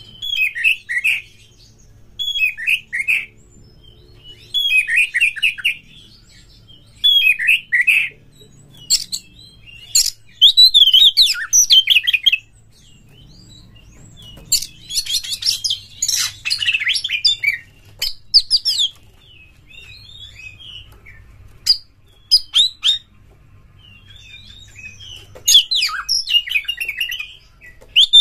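Oriental magpie-robin singing: short phrases of quick falling notes about every two seconds at first, then longer, louder, more varied phrases broken by pauses.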